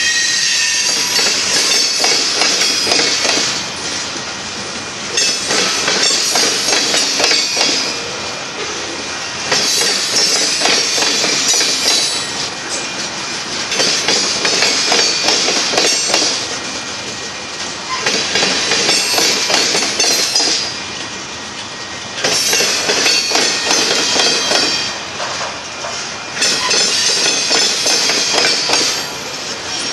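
Covered hopper cars of a manifest freight train rolling past close by, their wheels clattering on the rails. The sound swells louder every four to five seconds.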